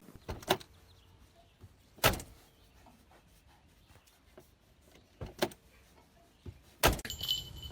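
A handful of short, sharp knocks, some close together, separated by stretches of near quiet.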